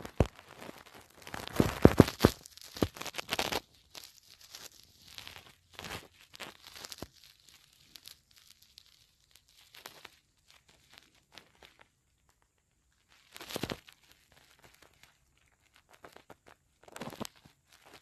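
Intermittent rustling and crinkling, heaviest in the first few seconds, then scattered soft rustles and one short burst about halfway through, with quiet gaps between.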